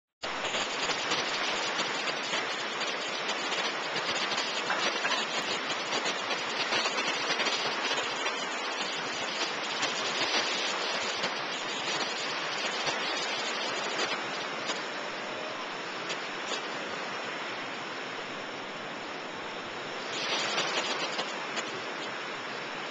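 Ocean surf: waves breaking and washing in as a steady hiss. It is louder through the first half, eases off, and swells again briefly near the end.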